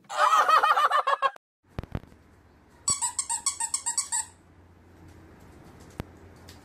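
An animal's loud, rapid squawking calls for about a second and a half, then, after a break, a run of about eight short, evenly spaced high squeaks.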